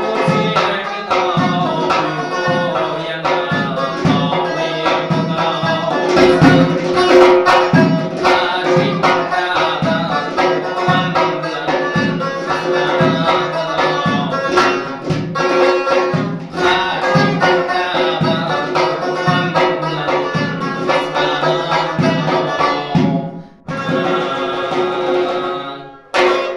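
Uzbek folk music: a long-necked fretted lute played over a doira frame drum beaten in a steady rhythm. The music breaks off briefly near the end, then plays a short closing phrase and stops.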